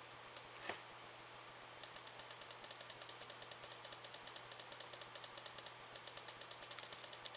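Computer mouse button clicked rapidly and evenly, about six clicks a second from about two seconds in, clicking a scrollbar arrow button to scroll a web page. Two single clicks come before the run, over a steady low hum.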